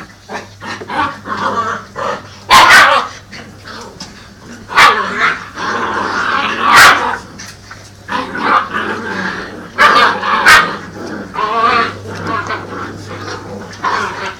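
White Swiss shepherd puppies barking and yipping as they play, in short bursts at irregular intervals.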